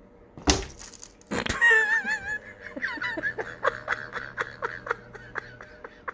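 A cat chattering at a bird through a window: a short warbling trill, then a quick run of clicks with little chirps, about four a second. Two sharp knocks come just before the trill.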